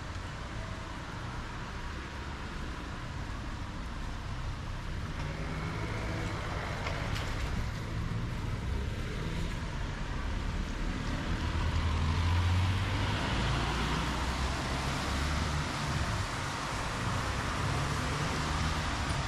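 Road traffic on a city street: motor vehicles running by, the low engine hum and tyre noise building to a peak a little past the middle.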